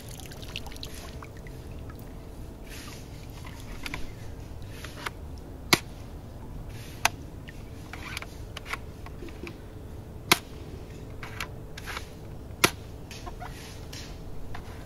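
A plastic toy rifle being handled and dipped in a shallow pond: several sharp clicks a second or two apart, with soft splashing and trickling of water.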